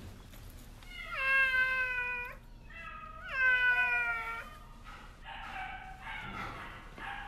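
A tabby cat with an arrow through its shoulder meowing in pain: two long, loud meows about a second and three seconds in, each sliding slightly down in pitch, with a short cry between them.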